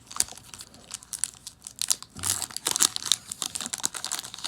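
Foil Pokémon TCG Guardians Rising booster pack being handled and torn open: a run of irregular crinkles and crackles, busiest about two to three seconds in.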